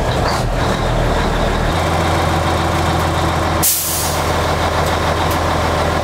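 R Model Mack truck's diesel engine idling at low RPM just after a start, its note shifting about two seconds in. A short sharp hiss of air comes about halfway through.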